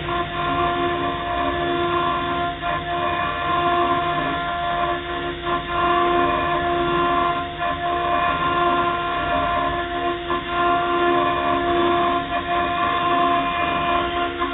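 ST6060H CNC milling machine's spindle running steadily with a high whine while its end mill cuts into an aluminium plate. The cutting noise dips briefly about every two and a half seconds.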